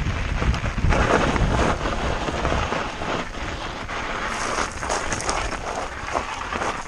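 Mountain bike descending a loose gravel and rock trail: tyres crunching and crackling over the stones and the bike rattling over bumps, with wind buffeting the camera's microphone. The low wind rumble is heavier for the first couple of seconds, then eases into mostly gravel crackle.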